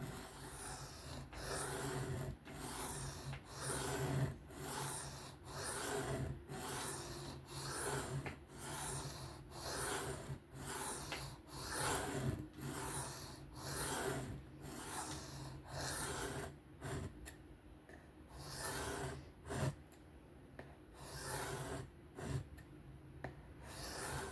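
Knife blade being stroked freehand across a sharpening stone, one rasping stroke about every second, raising and chasing a burr along the edge. A steady low hum sits underneath.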